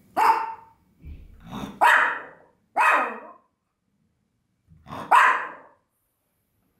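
Miniature pinscher barking: four sharp barks, three in quick succession and the last after a pause of about two seconds.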